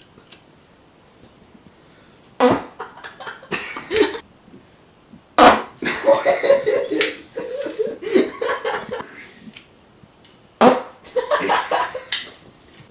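Three loud fart sounds, each starting with a sudden crack. The middle one is long and broken up.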